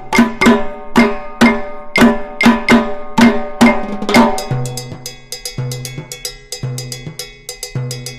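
Percussion-led background music with a steady beat of about two strikes a second; about four and a half seconds in, the pattern changes to a repeating bass note with quicker light ticks.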